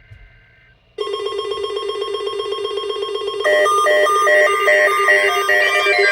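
Electronic emergency-alert tone, signalling an incoming alert ahead of a severe thunderstorm watch message. A buzzing, ring-like pitched tone starts about a second in and is joined about halfway through by higher beeping tones that pulse about twice a second and then step up and down in pitch.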